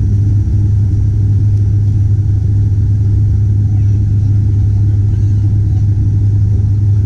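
Turboprop airliner's engine and propeller heard from inside the cabin beside the wing: a loud, steady low drone with a strong hum that does not change.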